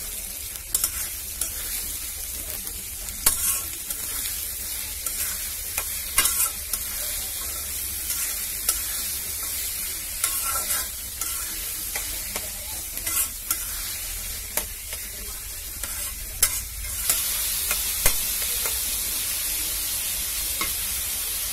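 Sliced onions and green chillies frying in oil in a metal karai, sizzling steadily, with a metal spatula scraping and knocking against the pan as they are stirred. The sizzle grows a little louder about two-thirds of the way in.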